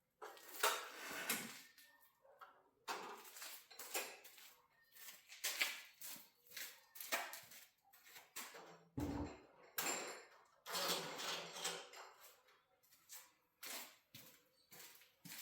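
Irregular knocks, clicks and scrapes of someone moving about and handling tools and hardware, with one heavier thump about nine seconds in.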